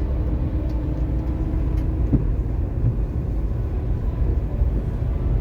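A bus driving on the highway: a steady low rumble of engine and road noise, with a single light knock about two seconds in.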